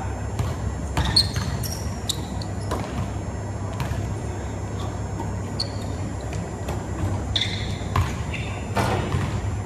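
Basketball bouncing irregularly on a hardwood gym floor, echoing in the large hall, with a few short sneaker squeaks, over a steady low hum.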